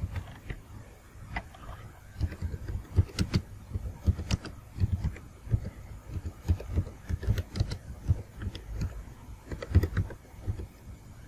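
Typing on a computer keyboard: irregular keystrokes, a few a second, each a short click with a dull thud.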